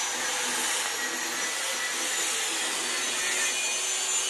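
A machine running steadily: an even whirring hiss with a faint hum under it.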